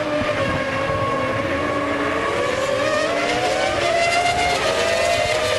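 Formula One cars' 3-litre V10 engines running at high revs, heard through the race broadcast's trackside microphones. Their pitch rises steadily as they accelerate, dips once about four and a half seconds in, then climbs again.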